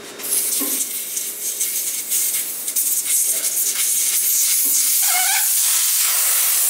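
Compressed air hissing loudly and steadily in a tire shop, with a brief squealing tone about five seconds in.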